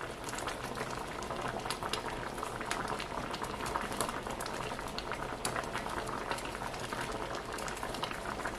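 Pot of seasoned chicken broth boiling on the stove: steady bubbling with many small irregular pops.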